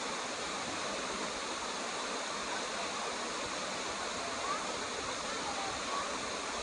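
Steady rushing of falling water from a waterfall, an even, unbroken wash of noise.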